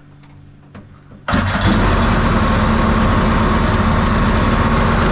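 700cc two-stroke engine of a home-built jet boat bursting into life about a second in and running loud and steady.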